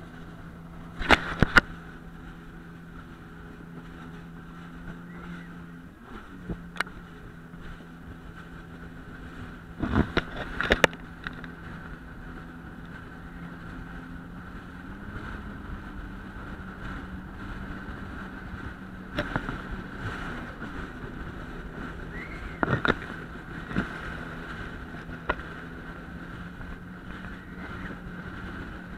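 Yamaha WaveRunner jet ski running at speed, heard from on board: a steady engine drone that rises a little in pitch about halfway, with a handful of sharp knocks, the loudest about a second in and around ten seconds.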